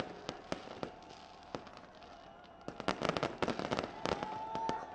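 Aerial fireworks bursting, with scattered sharp bangs and cracks at first. From about three seconds in comes a dense run of crackling reports.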